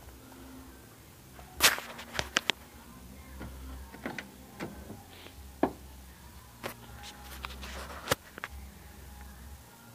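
Irregular sharp clicks and knocks, about a dozen of them, the loudest a little under two seconds in, over a low steady rumble.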